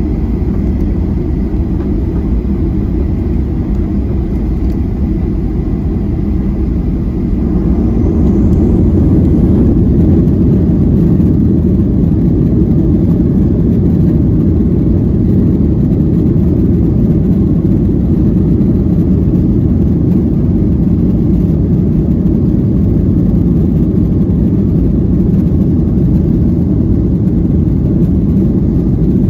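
Boeing 737-800's CFM56 jet engines heard from inside the cabin over the wing while the airliner rolls along the runway: a steady low rumble that grows louder about eight seconds in.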